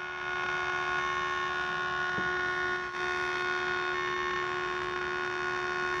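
Loudspeaker on an STK4141II stereo amplifier giving out a steady humming buzz made of several held tones. The hum comes from the connected USB player board.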